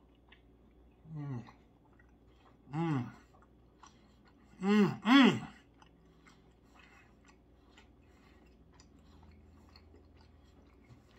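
A man chewing a mouthful of steak, humming four closed-mouth "mmm" sounds of enjoyment, each rising then falling in pitch. The last two are louder and come back to back about five seconds in. After them there is only soft chewing with faint mouth clicks.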